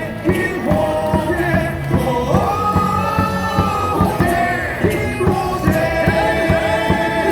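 Baseball stadium cheer song playing loudly with a steady drumbeat, with many voices singing the melody.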